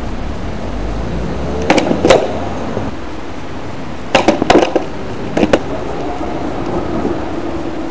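Skateboard clacking on asphalt during kickflip attempts: sharp knocks of the tail popping and the deck and wheels slapping down, in three short groups about 2, 4 and 5.5 seconds in, over a steady background noise.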